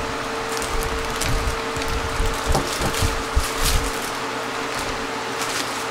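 Unboxing handling noise: light knocks and short rustles as a plastic power adapter is set down on a wooden table and the packaging is moved, with most of the knocks in the first few seconds. Underneath runs a steady hiss with a faint constant hum.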